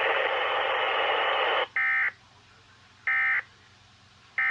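NOAA Weather Radio receiver hiss cuts off about a second and a half in. It is followed by three short, identical EAS/SAME digital data bursts, about 1.3 seconds apart. These are the End of Message bursts that close the Required Weekly Test.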